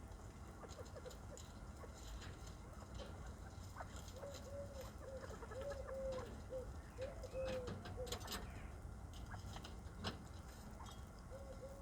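Aviary birds giving a run of soft, short, low clucking calls starting about four seconds in and again near the end, over scattered light clicks and taps.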